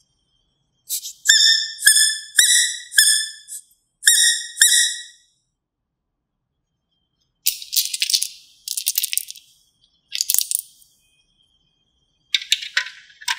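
Rubber duck squeaked six times in quick succession, each a short high squeak. Then plastic toy coins clatter and rattle in a hand, in three bursts.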